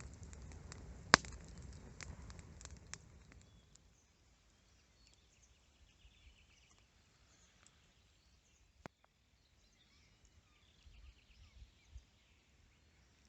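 Campfire crackling with sharp pops over a low hiss for the first few seconds, then fading to near quiet with faint bird chirps.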